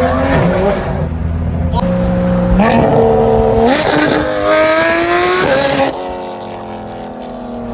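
Porsche 911 GT3 RS flat-six with an aftermarket JCR exhaust revving hard, its pitch climbing in several quick pulls, then dropping to a lower, steadier note near six seconds.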